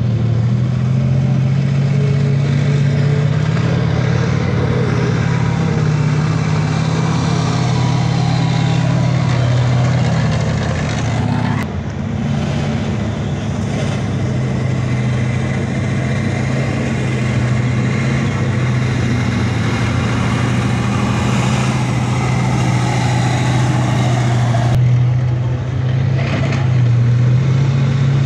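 Engines of a column of tracked armoured military vehicles running steadily as they drive past, a loud low drone with a constant noisy rumble over it. Near the end, a tracked vehicle with a front blade passes close by.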